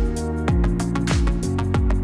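Background music with a steady beat: a kick drum about twice a second under held chords and bright percussion.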